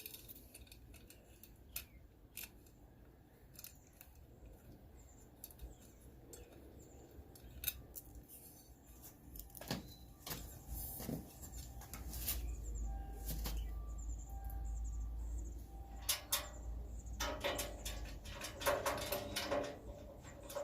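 Scattered light clicks and knocks of small hardware being handled: the hex bolt and washer are being taken out of a grill's front handle. A low rumble rises for a few seconds midway, and the clicking gets busier near the end.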